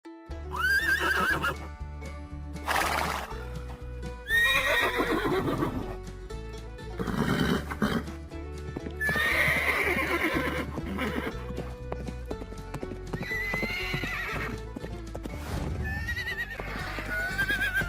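Horses neighing several times, separate wavering whinnies a few seconds apart, with a couple of short noisy blasts between them. Background music with a steady beat runs underneath.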